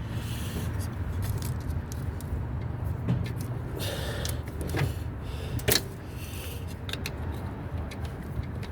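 Scattered sharp metallic clicks and clinks of hand tools working a shifter linkage piece loose, over a steady low hum.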